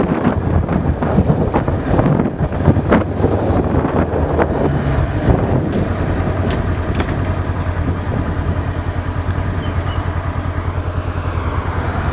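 Car engine and road noise heard from inside the cabin: a steady low drone, rougher with scattered clicks in the first half, settling into a fast, even pulse in the second half.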